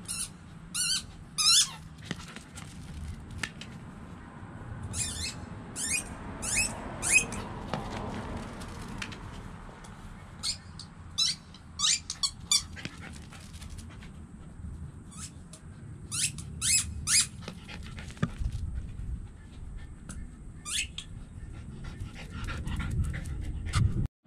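Small dog at play with a ball: short high-pitched squeaks in quick runs of three to five, repeating every few seconds.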